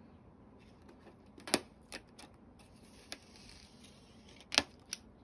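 A DVD box set's plastic wrapping being carefully cut and opened: a few sharp clicks and snips, the loudest about a second and a half in and again near the end, with a faint rustle between them.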